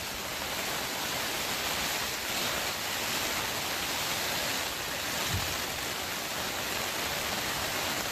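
Steady hiss of rain falling on the greenhouse's plastic cover. A soft low bump about five seconds in.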